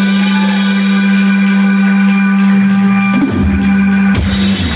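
Live rock band with electric guitars, upright double bass and drum kit holding one long note, with drum and bass hits coming in after about three seconds and a final crash just after four seconds as the song ends.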